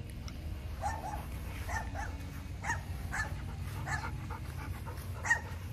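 A dog barking in a string of short, fairly faint barks, some coming in quick pairs, over a steady low hum.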